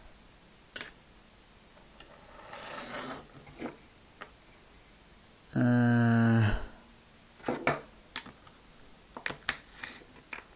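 Plastic Lego bricks being handled and pressed together: scattered sharp clicks and a brief rubbing of pieces. About halfway through comes a short held wordless hum, the loudest sound here.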